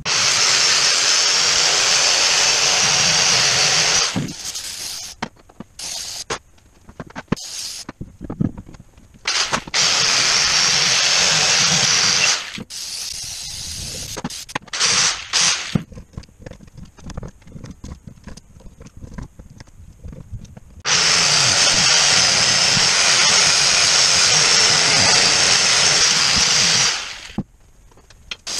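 Angle grinder spinning a brass wire cup brush against the air compressor's gasket surfaces to strip off old gasket material. It runs in three long stretches of several seconds each. Between them come short bursts, including a few quick hisses of aerosol brake cleaner about halfway through.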